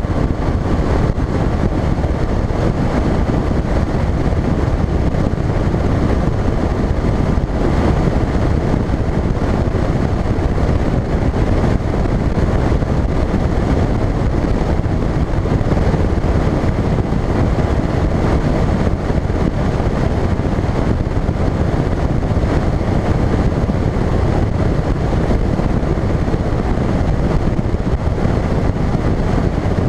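Phoenix bass boat running across open water: a steady, loud rush of wind on the microphone mixed with outboard motor and hull noise.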